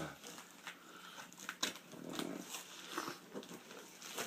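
Package wrapping being pulled and torn open by hand: scattered crinkles, rustles and small clicks of plastic and tape.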